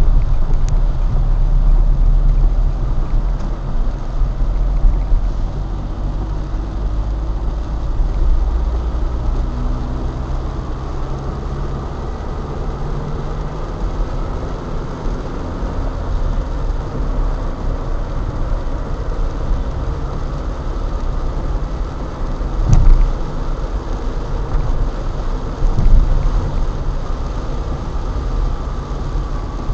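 Car driving on a rain-wet road, heard from inside the cabin: a steady low rumble of engine and tyres on wet tarmac. Two sharp thumps stand out late on, about three seconds apart.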